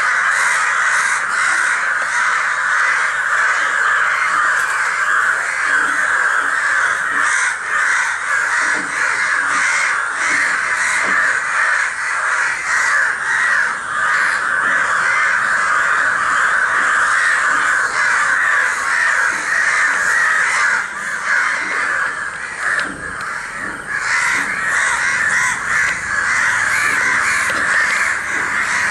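A large flock of crows cawing together in a dense, unbroken chorus, thinning briefly about three quarters of the way through. It is the loud alarm calling of crows gathered over an injured crow that has fallen.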